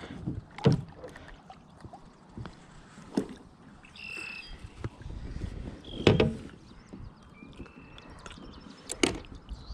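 Knocks and bumps on the plastic hull of a sit-on-top fishing kayak as the rod is laid down and a caught bass is brought aboard, four separate knocks spread a few seconds apart over a low rumble of handling. A few short bird chirps come near the middle and near the end.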